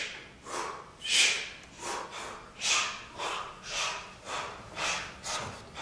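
Actors doing a diaphragmatic breathing exercise: a regular series of sharp, forced breaths, a little under two a second, each a short hiss.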